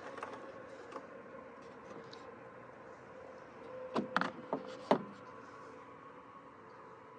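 A used spin-on oil filter being unscrewed by hand and lifted off its mount in an engine bay: a faint steady hum underneath, then a quick run of four or so sharp clicks and knocks about four to five seconds in, the last one the loudest.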